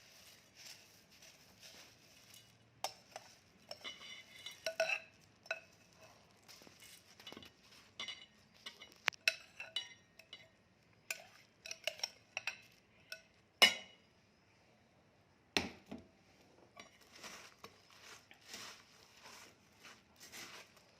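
Bhel of puffed rice and farsan being tossed and mixed in a bowl: a soft rustle with scattered clicks, plus two sharp knocks against the bowl past the middle.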